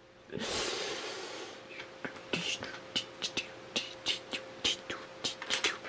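Small plastic LEGO pieces clicking and tapping as they are handled and pressed together: a string of irregular sharp clicks, after a short soft rustle at the start. A faint steady hum runs underneath.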